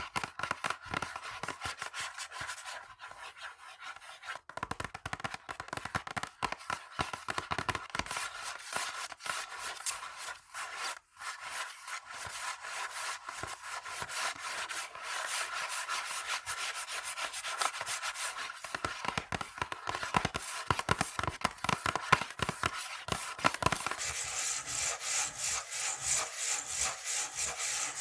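Fingernails scratching fast on textured surfaces, a rapid run of short scraping strokes. About 24 s in the surface changes and the scratching turns hissier and higher, with an even quick rhythm.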